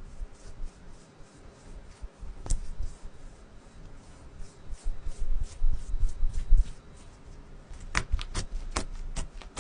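Stiff, waxy slime being pressed and worked by hand, giving a steady patter of faint crackly clicks with one sharp pop about two and a half seconds in and a run of sharper clicks near the end.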